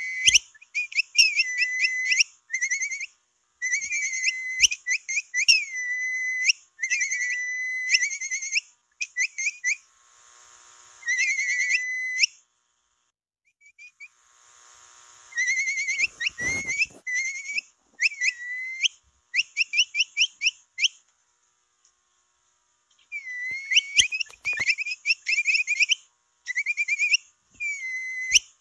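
Capybara whistling call played as a lure: high, chirping whistles in quick runs of short notes mixed with longer notes that slide in pitch, coming in bursts separated by short pauses. A brief low rumble sounds about halfway through.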